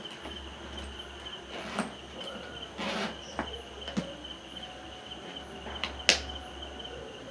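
Hands handling a leather office bag: the brass snap button on a front pocket flap clicks open and shut, amid light rustling and a few taps, the sharpest click about six seconds in. A steady high trill and a low hum run underneath.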